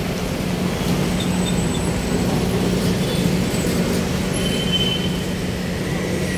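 Steady road and vehicle noise with a constant low hum, and a few faint high-pitched tones that come and go.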